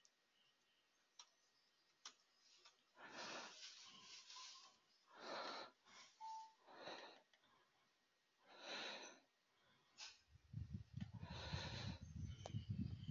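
Near silence with a person breathing softly near the microphone, about six breaths a second or two apart, and a couple of faint clicks early on. A low, uneven rumble starts near the end.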